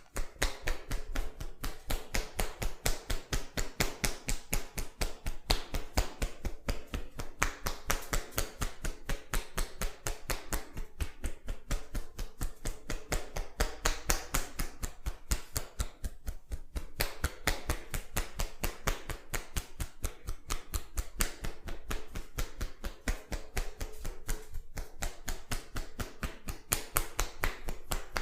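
Hands rapidly and rhythmically tapping and slapping on a head or neck in an Indian champi head massage, about five strikes a second in a steady run.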